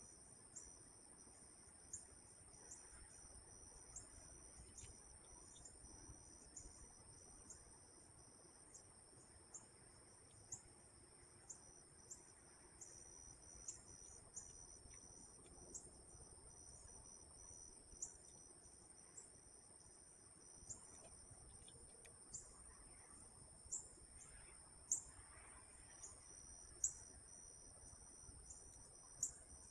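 Steady high-pitched insect chorus, cricket-like, with short high chirps repeating about once a second, a few of them louder near the end.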